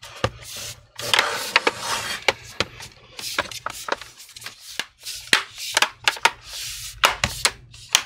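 Bottom cover of an HP Pavilion 15 laptop being pressed and snapped back onto the chassis: a string of sharp clip snaps and clicks, with hands rubbing and sliding over the case between them.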